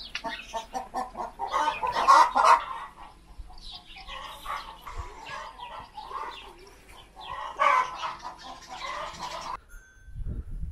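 Chickens clucking and cackling in quick, repeated calls. The calls stop suddenly near the end, and a low rumble follows.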